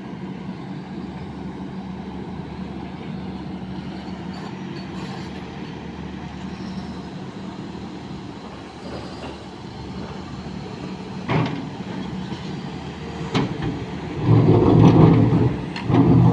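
Sany hydraulic excavator's diesel engine running steadily. Two sharp metallic knocks come partway through, followed by a loud rattling clatter near the end.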